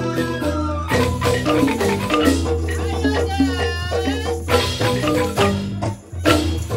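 Balinese rindik ensemble of bamboo xylophones playing a busy run of quick struck notes, with a bamboo suling flute on top. The music drops out for a moment about six seconds in, then comes straight back.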